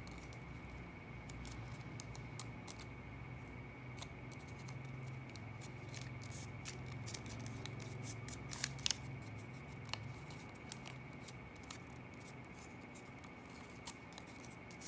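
Paper dollar bill being folded and creased by hand: scattered soft crackles and clicks of the stiff banknote paper, with a few sharper crackles about nine seconds in, over a faint steady hum.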